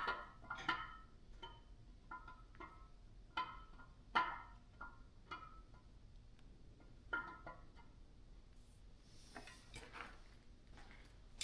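Irregular light metallic clinks and taps, each ringing briefly, of small-block Chevy engine parts and tools being handled during disassembly, with a soft hiss near the end.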